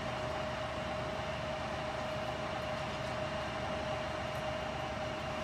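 Fire engines standing in the street with their engines running: a steady drone with a constant whine through it.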